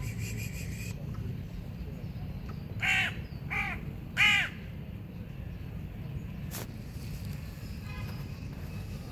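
A crow cawing three times in quick succession, each call short and arched in pitch, the third the loudest, over a low steady background rumble.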